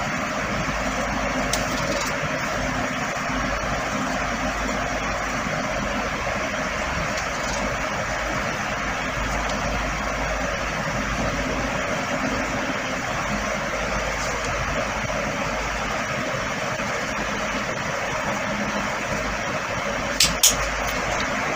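Steady, even rushing background noise with a faint low hum. Two short clicks come near the end.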